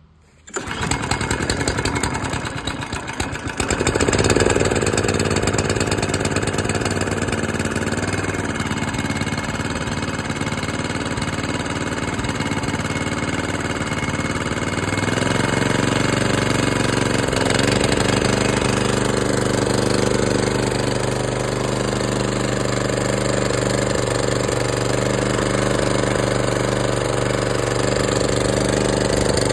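Kawasaki FJ100 single-cylinder four-stroke mower engine starting abruptly and then running steadily on the ignition coil under test. Its note changes about halfway through.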